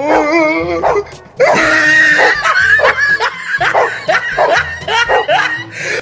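A dog barking in quick succession, with a wavering yelp in the first second, over background music with a steady low beat.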